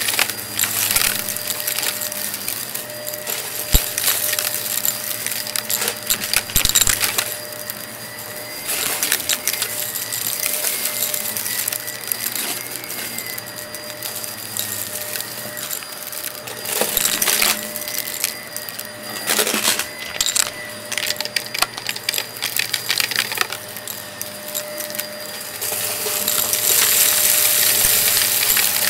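Shark Navigator upright vacuum running, its motor humming steadily while small hard debris rattles, clicks and crunches in the brushroll as it is pushed over a shag rug. The sound swells and gets louder near the end.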